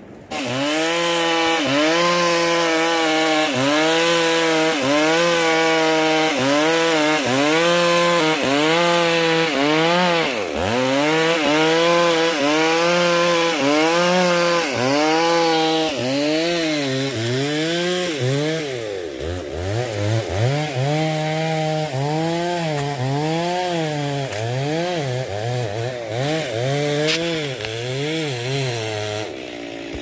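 Chainsaw running hard, as in cutting wood, its engine pitch rising and dipping about once a second. About halfway through, the dips become deeper and less regular.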